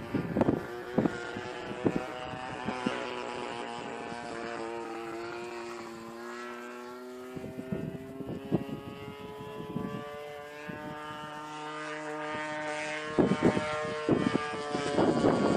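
Christen Eagle biplane's propeller engine running, its pitch sagging slightly and then slowly climbing, with gusts of wind buffeting the microphone at the start and again near the end.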